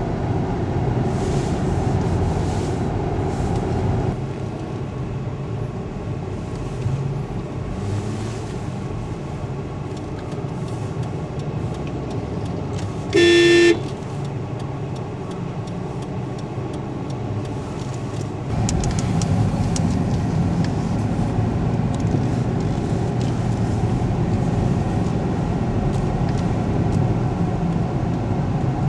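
Steady road rumble of a moving vehicle, growing louder about two-thirds of the way through, with one short car horn toot about halfway.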